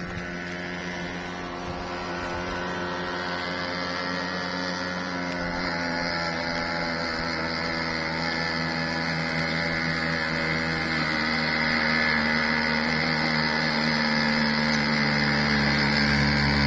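A vehicle's engine running at a steady pitch, growing steadily louder as it approaches.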